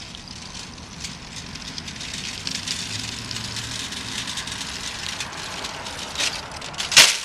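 Wire shopping cart rolling fast over asphalt, its casters and basket rattling and growing louder as it comes closer. Near the end there is one loud metal bang as the cart lands from a bunny hop.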